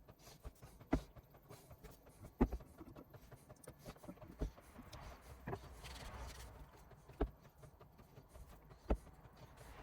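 Wooden chair parts knocking together, five separate sharp knocks a second or two apart, as glued joints are fitted and pressed home, with a little faint rustling in between.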